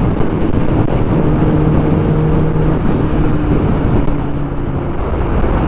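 Kawasaki ZX-10R's inline-four engine running at a steady cruising pitch, under a constant rush of wind and road noise.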